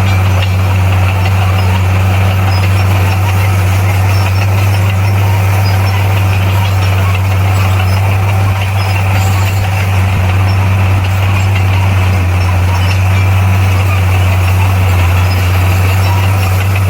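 Komatsu D58P bulldozer's diesel engine running steadily: a loud, even low drone.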